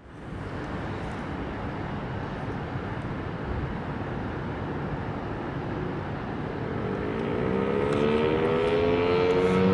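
Steady outdoor background noise, then about seven seconds in an American Signal T-135 tornado siren starts to growl: a low tone with several overtones that slowly rises in pitch and grows louder as its rotor spins up on a 12-volt battery.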